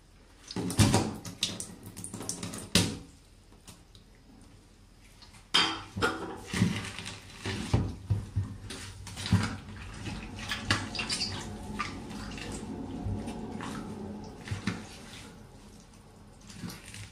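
Rubber boots stamping on and squashing food on a wet tub floor, with wet squelches, splats and the soles scuffing. The sound comes in two bouts: a short burst of stamps about a second in, then a longer, irregular run from about five seconds in.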